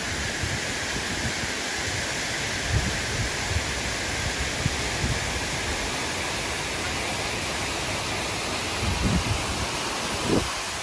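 Steady rush of a tall waterfall, with a few short low thumps on the microphone.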